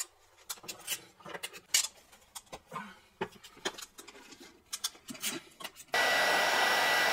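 Scattered clicks and rattles of hand tools working a cable and its lug, then about six seconds in a hot air gun switches on and runs with a steady blowing noise and a high whine, shrinking heat-shrink tubing over the crimped lug.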